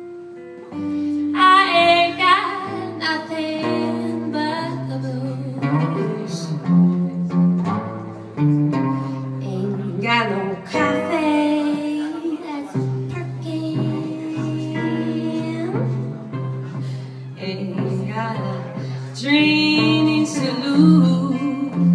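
Live blues performance: guitar accompaniment holding steady low notes under a wavering melodic lead line, a voice or a lead instrument, with no words.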